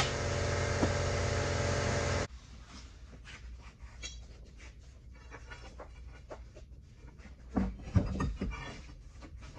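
Air impact wrench hammering on the leaf spring's U-bolt nuts, cutting off suddenly about two seconds in. After that only faint scattered knocks and clatter, with a few louder knocks near the end.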